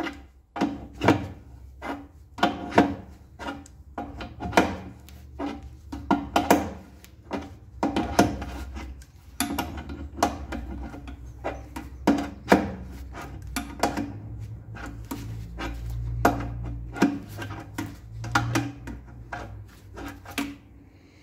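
Irregular clicks, knocks and clatter of hand tools and parts being handled while an air compressor is taken apart, over a low steady hum that grows louder past the middle.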